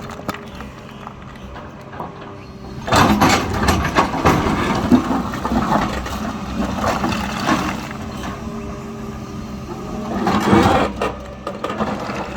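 Diesel engine of a JCB 3DX backhoe loader running steadily. It grows louder and rougher for a couple of seconds about three seconds in, and again about ten seconds in, as the machine works under load.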